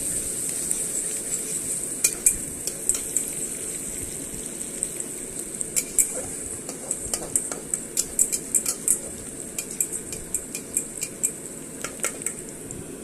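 Onions sizzling in hot oil in a pan while a spatula stirs them, clinking and scraping against the pan in quick, irregular runs of taps from about two seconds in.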